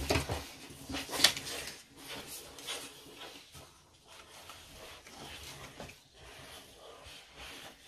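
Paper cutouts being handled on a tabletop: rustling and sliding of card, with scattered light taps and one louder rustle about a second in, fainter in the second half.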